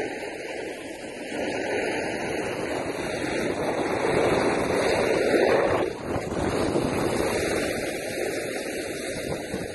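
Wind rushing over a phone's microphone, with a steady hiss of sliding over packed snow; it swells in gusts around the middle and drops briefly a little after halfway.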